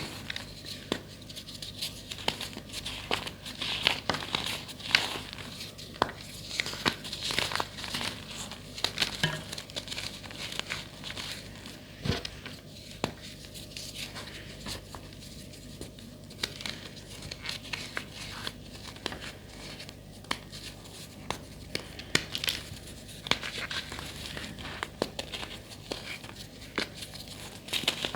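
Crunchy reformed gym chalk being crushed by hand: a steady run of dry crunching and crumbling, full of small sharp cracks.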